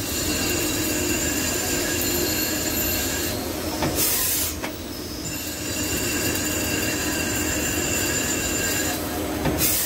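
CNC lathe's OD grooving tool cutting a helical groove in a rotating metal shaft, giving a steady high-pitched squeal of several tones over the hum of the machine. The squeal breaks off about four seconds in, where a short rush of noise comes, then resumes, and another rush of noise comes just before the end.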